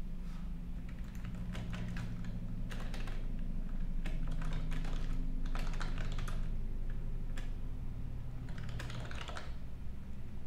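Typing on a computer keyboard in several quick bursts of key clicks with short pauses between them, over a steady low hum.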